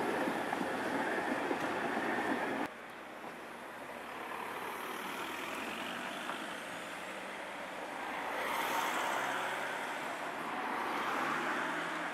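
A Tatra T4D tram running past close by on its rails, cut off abruptly about three seconds in. Then steady street traffic, cars driving past, swelling twice as vehicles go by.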